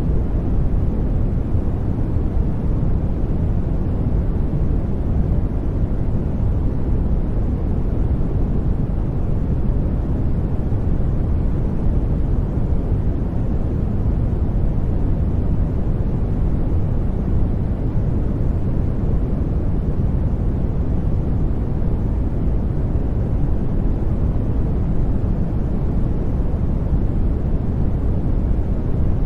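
Steady sleep-noise track of the kind sold as white noise, an even deep hiss with most of its weight in the low end and no changes or events.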